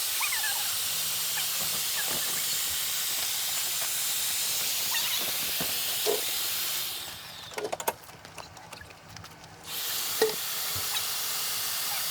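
Steady hiss of air being pumped into an inflatable RV skirt tube. The hiss cuts off abruptly about seven seconds in, with a few clicks, and starts again about three seconds later.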